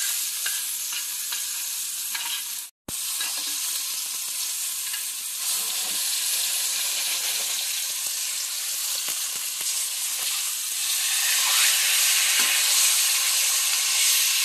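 Top sirloin steak sizzling in hot browned butter in a stainless steel pan, a steady frying hiss. The sound drops out for a split second about three seconds in and grows louder over the last few seconds.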